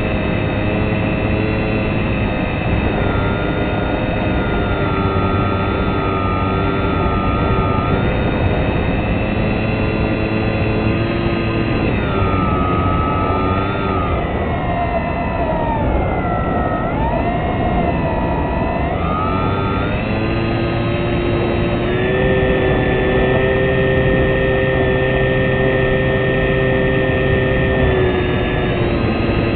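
A fixed-wing model aircraft's motor and propeller running steadily in flight, heard from on board. Its pitch sags and comes back up about halfway through, then holds a little higher for the last several seconds.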